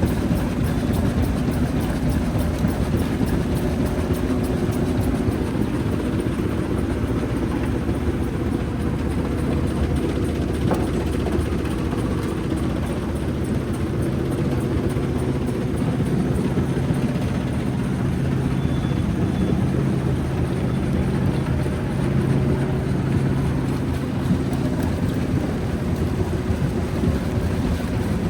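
Jaw crusher plant running steadily: a continuous heavy machine hum with a low steady tone, and only one faint knock about eleven seconds in.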